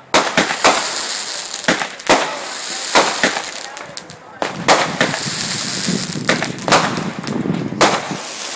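Backyard consumer fireworks going off: a rapid, irregular string of sharp bangs, about a dozen over several seconds, over a continuous crackling hiss.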